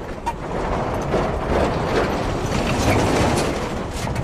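A multi-trailer road train rolling by: steady vehicle and tyre noise with irregular clattering and knocks throughout.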